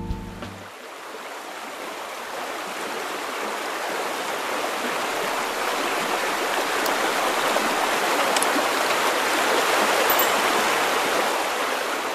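Steady rush of river water flowing over rapids, swelling up gradually over the first few seconds as the tail of the music cuts off.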